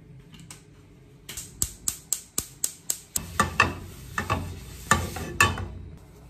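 A run of sharp, evenly spaced clicks, about four a second, then a paper towel rubbing and scraping around a Tefal non-stick frying pan as oil is wiped out of it.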